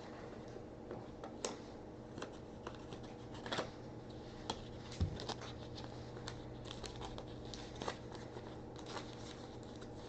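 Trading cards and pack wrappers being handled: sparse faint clicks and light rustling over a low steady hum.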